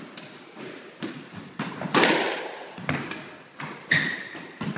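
A squash ball being hit around the court: a string of sharp cracks of racket and ball off the walls, each ringing on in the court's echo, the loudest about two seconds in. A brief shoe squeak on the wooden floor comes near the end.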